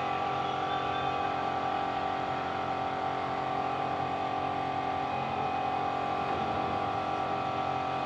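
Steady machine hum at a constant pitch, unchanging throughout.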